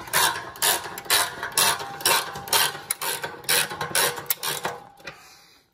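Hand socket ratchet on a long extension clicking in repeated strokes, about two a second, as a tow bar mounting bolt is wound in; the strokes stop near the end.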